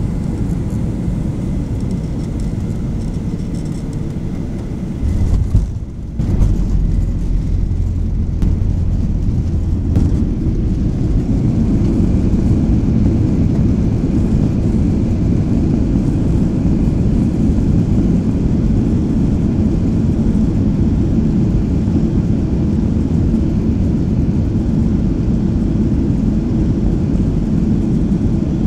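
Boeing 737-800 landing, heard from inside the cabin: steady engine and airflow noise, then a jolt as the main gear touches down about five seconds in. A heavy low rumble of the wheels rolling on the runway follows, growing louder from about ten seconds in as the spoilers stand up and the jet decelerates.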